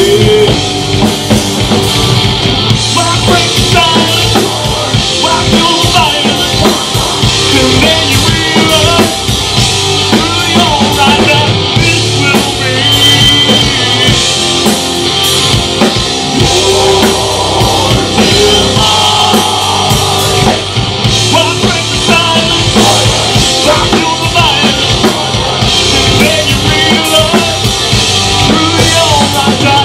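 Rock band playing live: drum kit, electric guitar and bass guitar.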